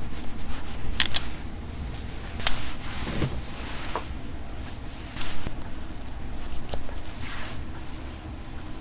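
Hair-cutting scissors snipping hair in a few sharp metallic clicks: a close pair about a second in, a single one shortly after, and another close pair past the middle, with soft rustling of hair between.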